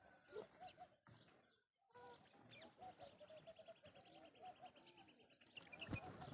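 Faint mixed birdsong: many short repeated chirping calls, with a rapid high trill through the middle, and a sharp click near the end.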